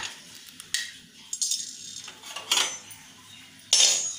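A spoon or spatula scraping and tapping in an empty, dry metal kadai as whole spices (bay leaf, dried red chilli, cardamom) are stirred for dry-roasting. The clinks and scrapes come in a few short bursts, with the loudest scrape near the end.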